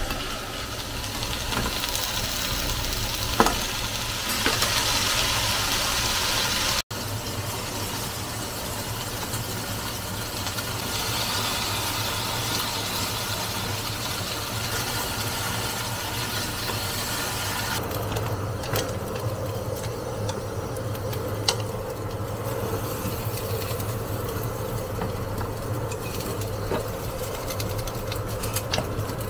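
Steady low hum with light kitchen clatter and occasional clicks, broken by a brief dropout about seven seconds in.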